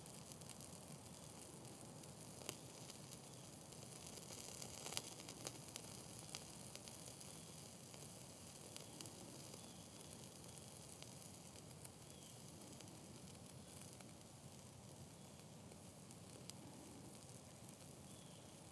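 Faint, steady hiss and crackle of small flames on cotton balls soaked in Vaseline and cooking oil and wetted with water, with a few soft pops around two and five seconds in.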